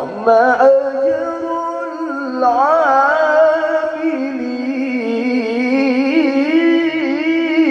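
A man reciting the Qur'an in the melodic tilawah style over a microphone and PA, holding long, high notes that waver and turn in ornamented runs. His voice is hoarse and being pushed.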